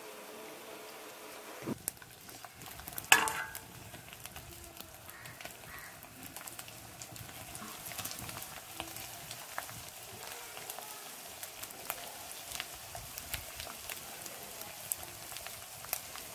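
Boiled potato strips frying in hot oil in a wok: a steady sizzle dotted with small crackles, with one sharp knock about three seconds in.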